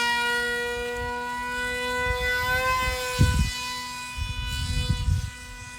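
RC Su-57 model jet's motor whining steadily at high throttle in flight, one even, siren-like tone that slowly fades in the second half. Low rumbling thumps come in about three seconds in and again near the end.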